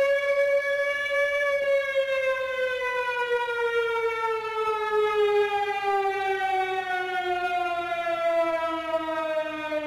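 Air raid siren sample, pitched up. It holds near its top note for about a second and a half, then winds slowly and steadily down in pitch.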